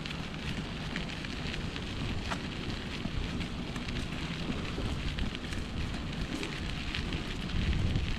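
Wind buffeting the camera microphone as a steady low rumble, with faint irregular crackles over it.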